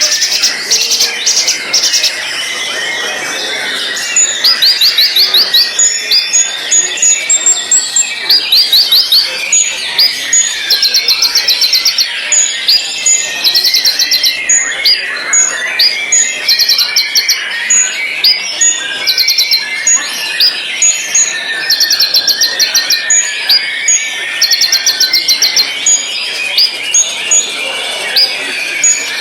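White-rumped shama (murai batu) singing: fast rattling series of high notes, each about a second long, repeated again and again, with short sharp high whistles between them over a busy layer of lower twittering.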